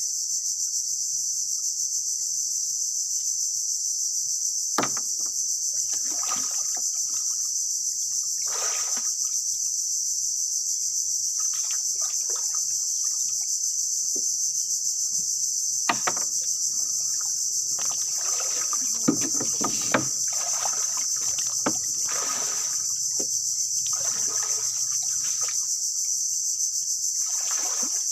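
Steady, high-pitched drone of insects in a mangrove swamp. It is broken now and then by short knocks and splashes of water as someone moves about in a small boat and climbs onto a fallen log, with the busiest stretch about two-thirds of the way through.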